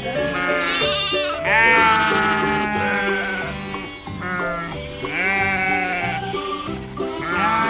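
Bleating of a goat or sheep, several calls in a row with a shaky, wavering pitch. The second call, about a second and a half in, is the loudest and longest. Background music plays underneath.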